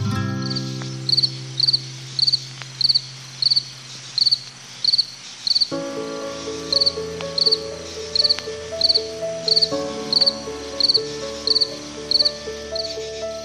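An insect chirping in short, evenly spaced chirps, about three every two seconds, over background music; a new tune starts around the middle.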